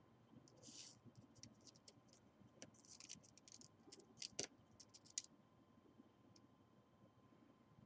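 Faint crinkling of a small clear plastic bag of screws being handled, with scattered light clicks and taps, the sharpest around four and a half seconds in and again near five seconds.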